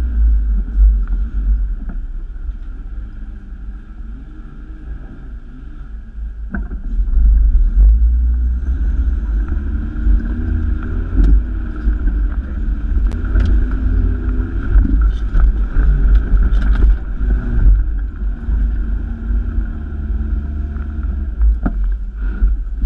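Toyota Hilux 4WD driving slowly over a rough, muddy track, heard from inside the cab: a steady low engine and drivetrain rumble, with the revs and loudness rising about seven seconds in and staying up. Scattered knocks and rattles of the vehicle jolting over the ruts come through, mostly in the second half.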